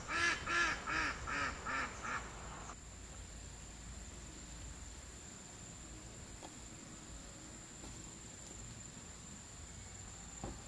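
A duck quacking in a quick run of about six calls over the first two seconds, then stopping abruptly. A faint, steady, high-pitched drone continues underneath.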